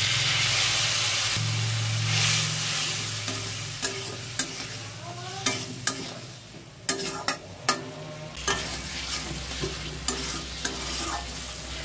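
Spice masala, potatoes and tomatoes sizzling in oil in a kadai just after a little water goes in, with a metal spatula stirring and scraping. The sizzle is loudest for the first two or three seconds, then softer, with sharp clicks of the spatula against the pan from about four seconds in.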